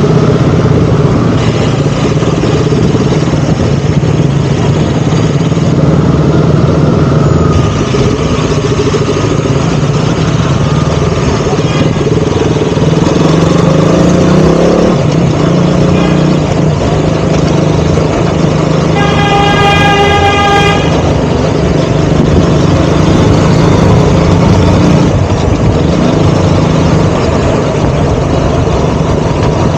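KTM Duke 200's single-cylinder engine running steadily while riding, its pitch shifting a little with the throttle. A vehicle horn sounds for about two seconds roughly two-thirds of the way through.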